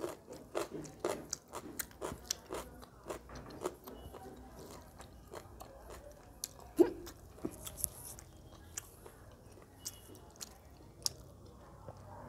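Close-miked eating by hand: a person chewing rice and chicken curry, with many wet mouth clicks and smacks, thickest in the first few seconds and with one louder click about seven seconds in.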